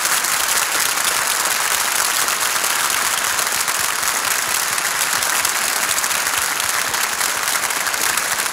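Studio audience applauding, many hands clapping at once in a steady, dense patter, heard on a 1950 radio transcription-disc recording.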